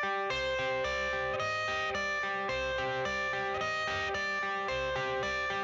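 Background music: a guitar-led instrumental intro with a steady beat.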